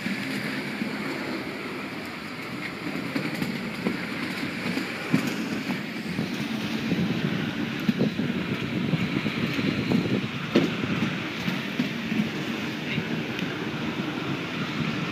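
Inline speed skate wheels rumbling on a rink floor as skaters race by, with a few sharp clicks. The rumble grows a little louder about halfway through.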